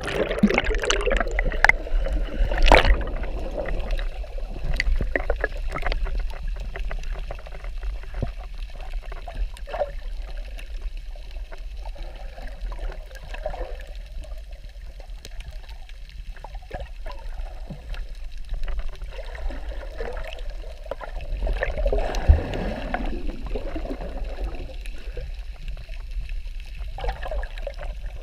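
Muffled underwater sound picked up by a submerged action camera: a steady low rumble of moving water with scattered clicks and gurgling bubbles. The bubbling is busiest in the first few seconds, just after the camera goes under.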